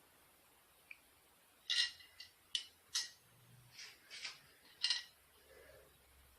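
Scattered light clicks and clinks of hand tools and parts being handled: about six sharp ones, starting a couple of seconds in.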